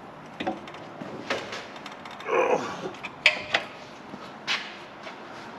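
Hand tools knocking and clicking against metal while loosening the exhaust hanger bolts on a CFMoto ZForce 800: about five sharp, separate clanks spread out, with a short scrape about two and a half seconds in.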